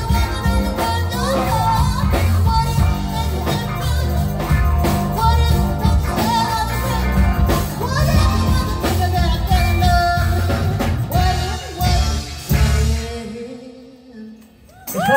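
Live soul band with bass, drums, guitar and keyboards playing on a steady beat behind a woman singing; the song ends about thirteen seconds in and the music drops away.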